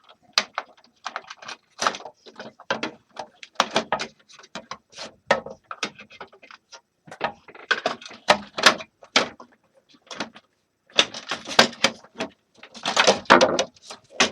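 Irregular clicks, knocks and rattles of plastic and metal parts being handled while a space heater is taken apart, with a busier burst of rattling in the last few seconds.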